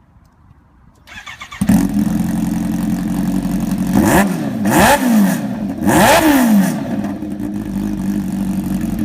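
Kawasaki H2's supercharged inline-four starting up about a second and a half in, then idling with a few sharp throttle blips in the middle, the revs rising and falling each time, before settling back to a steady idle.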